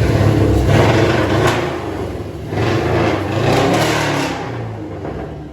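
A car engine revving and accelerating in two surges, then fading away.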